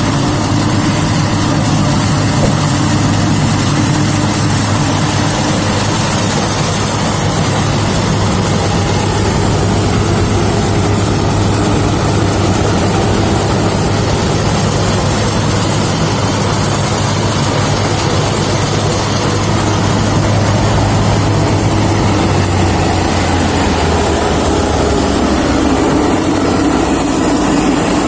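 Rice combine harvester's engine running steadily under load, a continuous loud drone with machinery noise; the engine note drops lower about four fifths of the way through.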